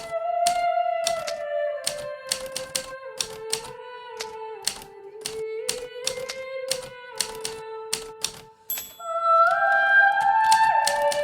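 Hermes Baby portable typewriter keys striking in an uneven typing rhythm, several keystrokes a second, over soft background music of slow held notes that grows louder about nine seconds in.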